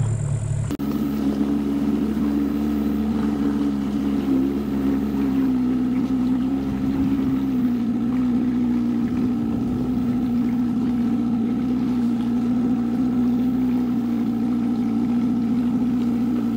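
Outboard motor of a Progress aluminium motorboat running at a steady cruising speed, an even engine hum; it cuts in sharply a moment after the start, replacing a car's running rumble.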